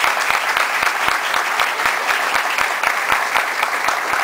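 Audience applauding a deciding men strike in a kendo match, with sharp individual claps close by over the general clapping.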